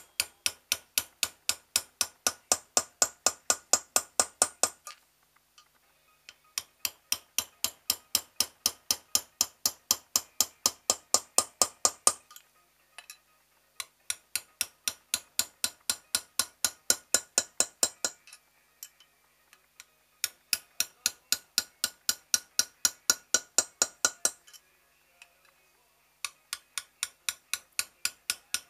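Runs of rapid, evenly spaced metallic clicks, about three to four a second, each run lasting several seconds with a short break between runs.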